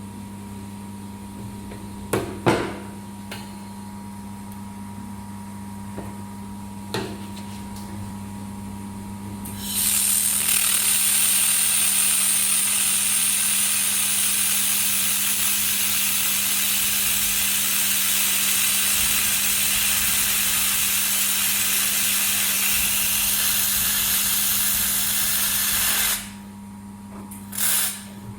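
2000 W laser welder making a test weld on 5 mm aluminium: a loud, steady hissing crackle starts about ten seconds in and cuts off abruptly some sixteen seconds later. A constant low machine hum runs underneath, with a few sharp clicks before the weld starts and just after it stops.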